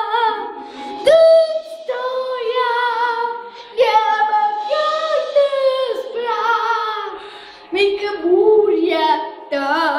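A girl singing without accompaniment, in several long held phrases with a wavering vibrato and short breaks for breath between them.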